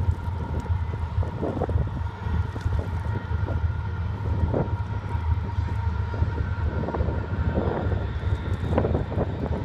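Wind buffeting the microphone over a steady low rumble with a faint, steady whine.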